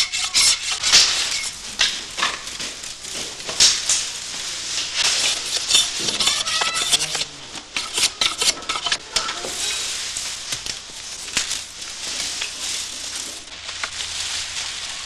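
Knife shaving and scraping bamboo strips for basket weaving: quick rasping strokes, thick in the first half and thinning out later.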